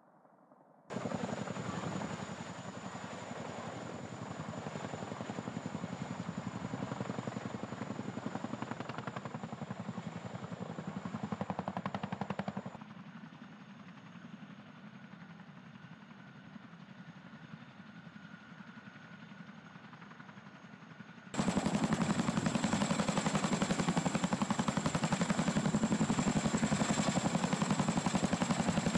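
Boeing CH-47 Chinook tandem-rotor helicopter: a fast, even chop of the rotor blades over a steady high whine. It comes in about a second in, drops quieter about 13 seconds in, and turns loudest about 21 seconds in while hovering low overhead.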